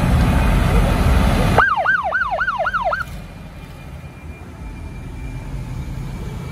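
Siren on an old truck with red roof beacons, giving a short yelp of about five quick rising-and-falling wails. A loud rush of noise comes before it, and after it the truck's low engine rumble goes on.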